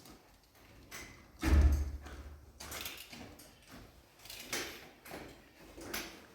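Scattered knocks and clunks, like doors or panels being handled, with one heavy, deep thud about one and a half seconds in.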